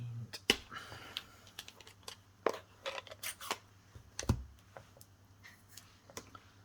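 Paper and stamping supplies handled on a tabletop: a string of light clicks and taps, paper rustling about a second in, and a duller knock a little past four seconds in.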